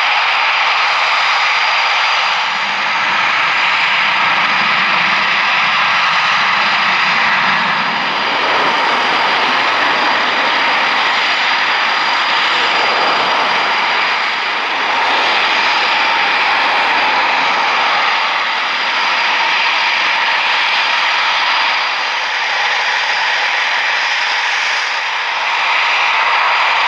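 Eurofighter Typhoon jet, its twin EJ200 turbofan engines running with a steady loud roar and a high whine, rising and easing slightly at times.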